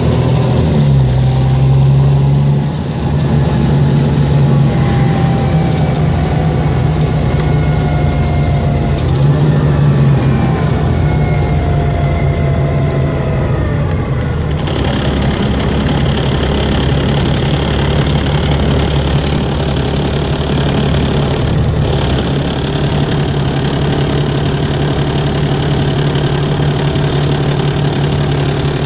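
Volvo 7700A articulated bus's diesel engine running steadily, with several thin whining tones gliding slowly down in pitch over the first half; about halfway through the sound shifts and a higher hiss joins in. These are the strange noises such buses sometimes make, for an unknown reason.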